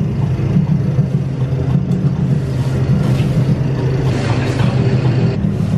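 Elevator car riding up, a loud, steady low rumble with a hum in it.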